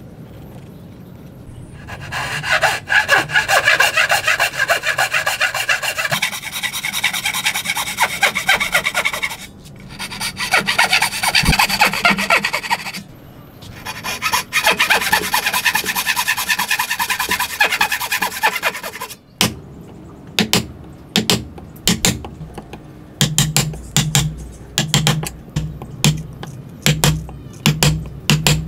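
Hand saw cutting wood in runs of quick back-and-forth strokes, broken by short pauses, as the cheeks of a dovetail joint are sawn. About two-thirds of the way through the sawing stops and a mallet starts striking a chisel, a steady series of sharp knocks about one and a half a second, chopping out the waste between the dovetails.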